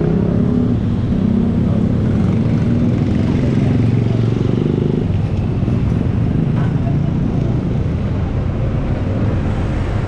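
A motor vehicle engine running steadily close by as a low rumble, with street traffic.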